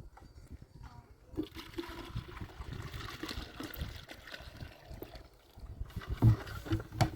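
Water running for a few seconds and stopping about five seconds in, followed by two dull knocks near the end.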